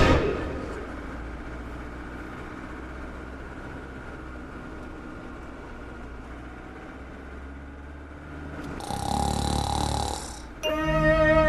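A person snoring, with a faint, even breathing noise and then one louder snore of about two seconds near the end.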